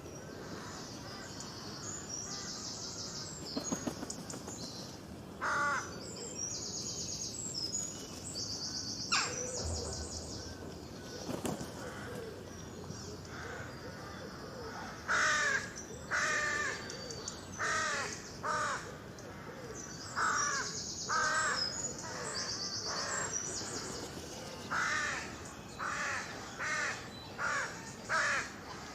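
Crows cawing, a series of short harsh calls that come thick and fast in the second half, with other small birds chirping in quick, high, pulsed runs.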